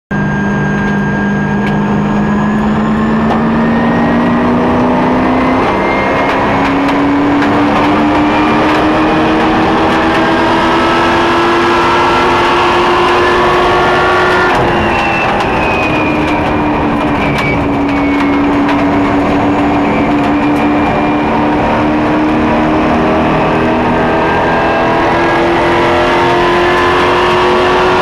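Ethanol-fuelled racing super truck's engine at speed, heard from inside the cab. It runs hard with its pitch climbing slowly, dips briefly about halfway through, then climbs again.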